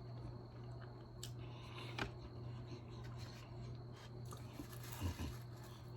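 Quiet close-up chewing and mouth sounds of someone eating a fried egg roll, with a few sharp wet clicks and soft thumps, over a steady low hum.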